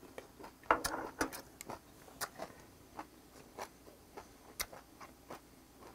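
Close-up mouth sounds of a man chewing a hot mouthful of bird cockle and spinach shabu-shabu: wet clicks and smacks every half second or so, with a brief breathy burst about a second in.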